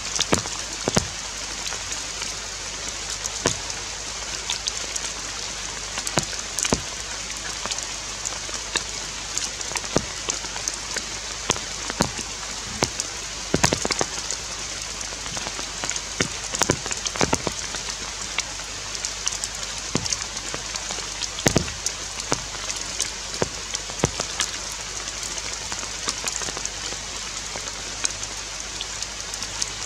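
Rain falling on forest foliage: a steady hiss with frequent sharp taps of drops scattered throughout.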